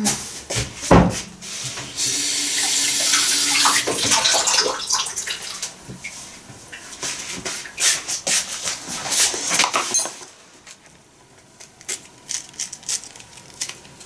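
Water tap running for a couple of seconds as hands are rinsed under it, with splashing that tails off, surrounded by scattered knocks and clicks of handling.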